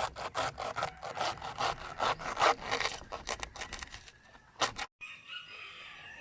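Knife slicing banana trunk into thin pieces, with quick cutting strokes at about four a second, thinning out and stopping about two thirds of the way through.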